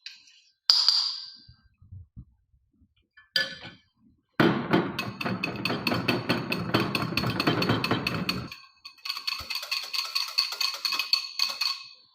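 A spoon stirring milk into a thick mixture to smooth it out. A single ringing clink comes less than a second in. From about four seconds there is fast, steady scraping and clicking, then a run of rapid ringing clinks as the spoon strikes the side of the container.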